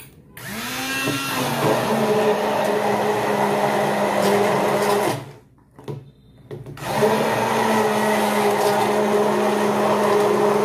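Hand-held immersion blender pureeing boiled pumpkin soup in a small steel cooker pot, run in two bursts of about five and four seconds with a short pause between. Each time the motor rises in pitch as it starts and falls as it stops.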